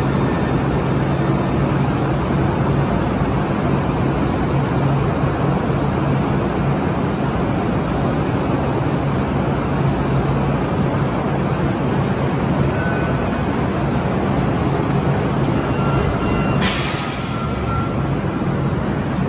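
Two Link light rail trains, Series 1 Kinkisharyo and Series 2 Siemens cars, standing at an underground station platform with their onboard equipment running: a steady noise with a low hum. Near the end a short, sharp hiss sounds, and the hum stops with it.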